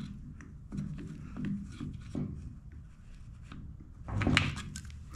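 Rubber fuel line rubbing as it is pulled through the fuel-tank port of a Husqvarna 455 Rancher chainsaw with needle-nose pliers, with small clicks of the pliers against the plastic housing. A louder handling sound comes about four seconds in.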